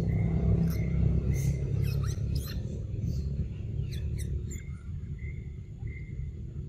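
A macaque eating a mango: a scatter of short sharp clicks from its mouth as it chews and bites the fruit, over a steady low rumble, with a faint high chirp now and then.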